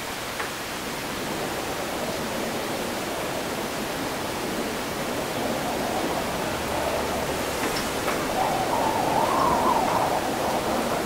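Wind blowing through a city after rain, a steady rushing noise that swells and wavers louder about eight seconds in.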